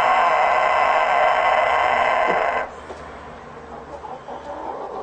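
Rooster holding one very long, steady crow that cuts off suddenly about two and a half seconds in, followed by soft clucking from the hens.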